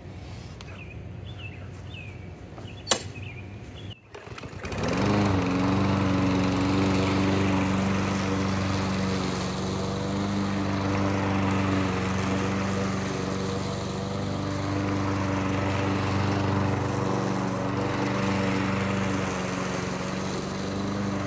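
Briggs & Stratton push-mower engine, freshly rebuilt after a compression loss, firing up about four seconds in with a quick rise in pitch and then running steadily.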